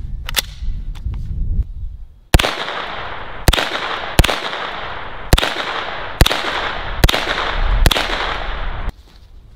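HK SP5 9mm semi-automatic carbine (a civilian MP5) fired in slow single shots: seven sharp shots roughly a second apart, preceded by one faint report less than a second in. A steady rushing noise fills the gaps between the shots and cuts off abruptly near the end.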